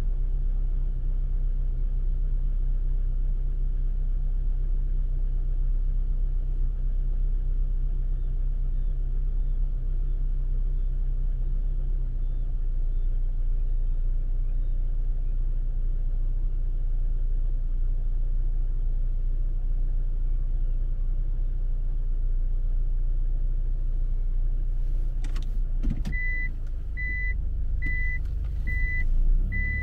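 Car engine idling, a steady low hum heard from inside the cabin. Near the end there is a click, then a reversing beeper starts, one high beep a little more than once a second, as the car is put into reverse.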